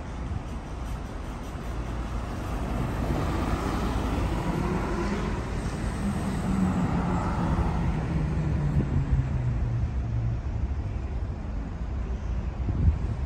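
A car driving past: engine and tyre noise swell, are loudest a few seconds in, then fade away as the low engine note drops in pitch.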